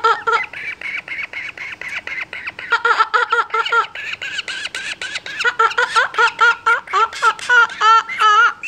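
Hatchling kookaburra begging as it is hand-fed: a rapid, unbroken string of short harsh calls, several a second, louder in the last few seconds.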